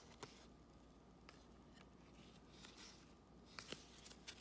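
Near silence with a few faint ticks of trading cards being shuffled in gloved hands, more of them near the end.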